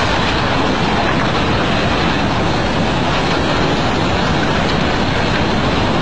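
Tsunami floodwater rushing inland in a loud, steady roar.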